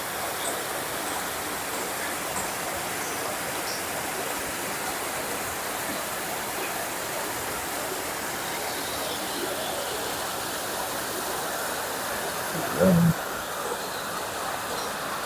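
Steady rush of water flowing in a swimming pool complex. A brief, loud pitched sound cuts in once near the end.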